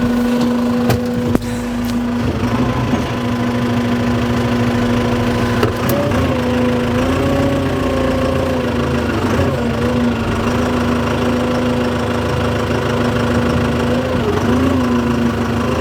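An engine running at a steady speed, its pitch dipping and recovering briefly a few times, with a couple of sharp clicks about a second in.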